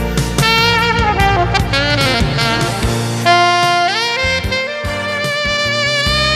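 Instrumental background music: a lead melody with slides between notes over a steady bass and accompaniment.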